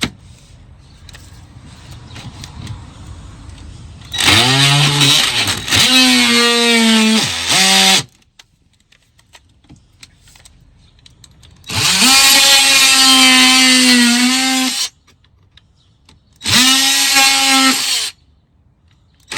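A handheld power tool runs in three loud bursts, the longest about four seconds. Each burst starts with the motor spinning up, and in the first the pitch bogs down under load, as when drilling or cutting into the plastic under the car to fit running-board brackets.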